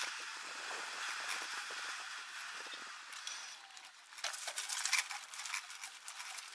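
Footsteps of a person walking on a paved street and then on gritty concrete, over a steady background hiss, with a few sharper steps about four to five seconds in.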